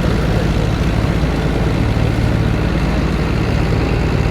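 An engine running steadily with a low, even hum and no change in speed.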